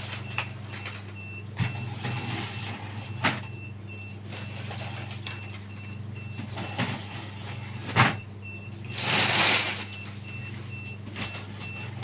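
Steady hum of an egg incubator's fan, with a few sharp plastic knocks and a scraping slide about nine seconds in as hatching baskets of eggs are pushed into the incubator.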